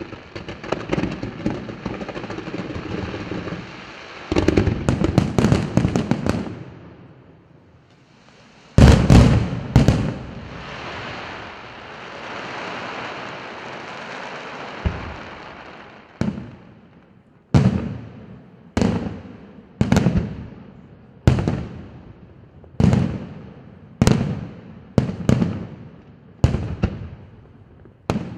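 Fireworks display: a dense crackling barrage and a quick volley of bangs, then two heavy shell bursts followed by several seconds of steady crackle from glittering stars. In the second half, aerial shells burst in a regular string, about one a second, each with a trailing echo.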